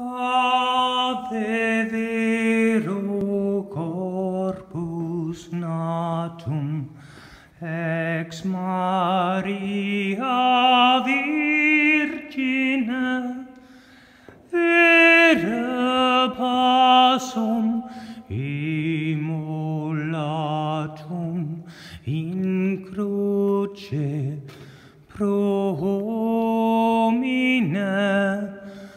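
A man singing long held notes without words, moving from pitch to pitch with short breaks, in the echoing acoustics of a vaulted church nave.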